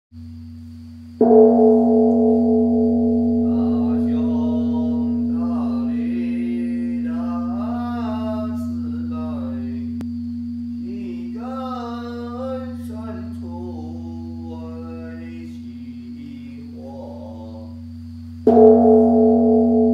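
A temple bell struck twice, about seventeen seconds apart, each stroke ringing on and slowly dying away over a low steady hum. Between the strokes, voices chant with gliding pitch.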